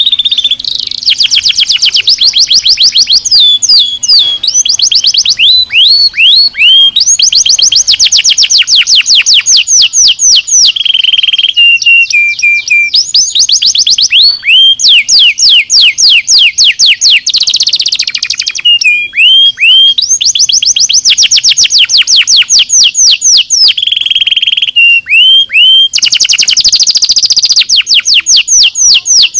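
Domestic canary singing loudly and without pause. The song is a string of fast trills, each a rapid run of the same rising note repeated several times a second for a second or more, and it switches to a new trill or a short held note between runs.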